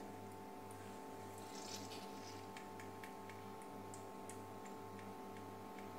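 Faint wet squelches and small clicks of hands squeezing water out of soaked bhalla dumplings, over a steady low hum that swells about twice a second.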